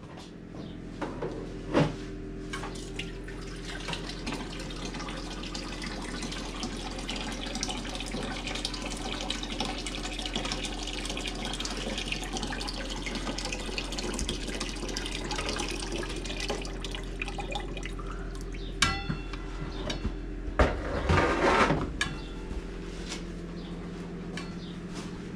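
Water running from a tap into an aluminium pot as it is filled and washed, with a sharp knock about two seconds in and clanks of the metal pot near the end.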